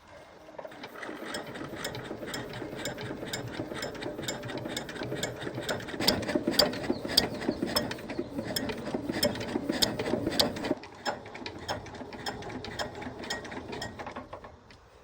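Rapid mechanical ratcheting clicks from hand work on a small generator, loudest in the middle and easing off after about eleven seconds.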